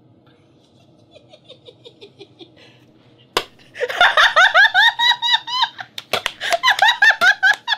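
A woman and a man laughing hard. Soft chuckling gives way, after a sharp hit about three and a half seconds in, to loud, high-pitched, rapidly pulsing laughter from the woman.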